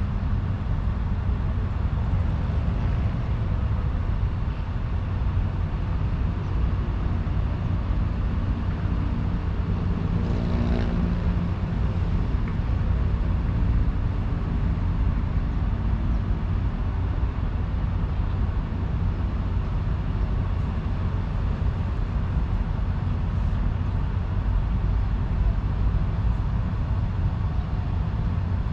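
Steady low rumble of distant engines, with a short pitched hum rising and fading about ten seconds in.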